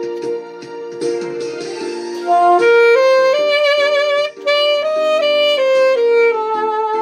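Saxophone playing a slow melody over a recorded backing track. The backing chords sound alone at first, then about two and a half seconds in the saxophone comes in with a line of held notes stepping up and then back down.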